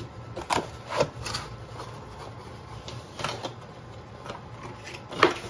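Hands rummaging in a cardboard shipping box: a handful of short knocks and scrapes of packaging being handled, the loudest near the end.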